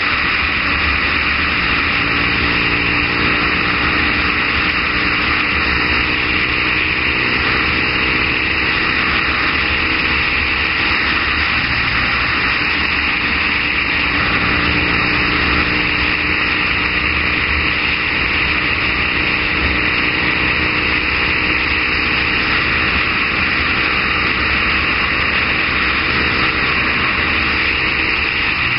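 Triumph Bonneville parallel-twin engine running at a steady cruise, with a loud, steady rush of riding wind over the microphone.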